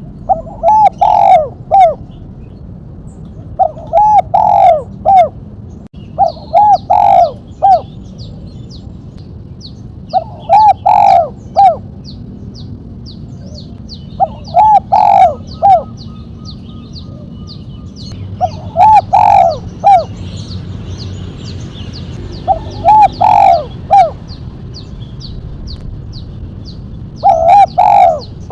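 Spotted dove cooing: a short phrase of quick coos, repeated eight times about every three and a half seconds, in the 'mercik' style with a sharp single-note 'kuk' ending. A faint, fast, high chirping of a smaller bird runs behind it from a few seconds in.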